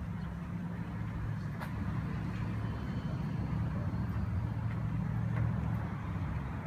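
A motor vehicle engine idling: a steady low hum.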